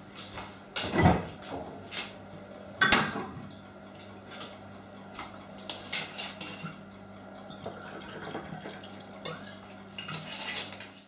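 Kitchen clatter of dishes, cutlery and glassware: scattered knocks and clinks, the loudest about one and three seconds in, with a glass wine bottle being handled near the end.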